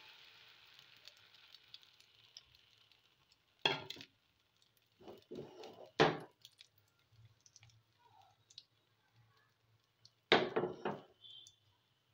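A metal spoon knocking and scraping against a frying pan as it spreads batter, in three short bursts about four, six and ten seconds in. Under it, a faint sizzle of batter in hot oil fades away over the first couple of seconds.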